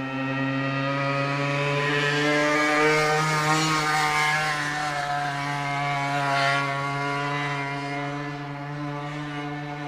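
Yamaha TZM50R's single-cylinder two-stroke engine running at steady high revs through a DGW expansion chamber. The note grows louder and brighter in the middle, then eases off a little toward the end.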